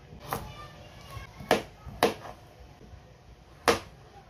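Kitchen knife chopping a raw carrot on a plastic cutting board: four sharp knocks of the blade hitting the board at uneven intervals, the last one the loudest.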